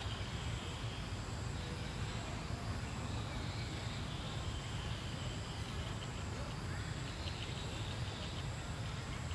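Steady outdoor background noise: a low rumble with a faint, high, rapidly pulsing buzz that comes and goes.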